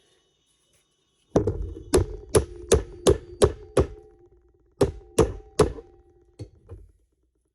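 Hammer blows on a stuck part of a Honda Civic front spindle, the steel ringing after each strike. Seven strikes at a steady pace of about three a second, a short pause, three more, then two lighter taps.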